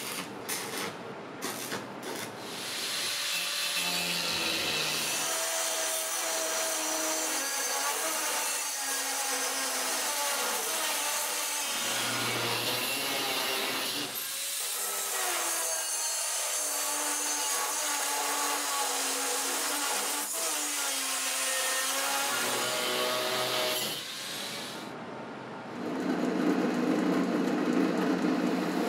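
Stick-welding arc crackling for the first couple of seconds. Then an angle grinder cuts through a wooden strip for about twenty seconds, its motor note sagging and rising as the disc bites. Near the end a drill press starts up and drills into the clamped strip, louder than the grinding.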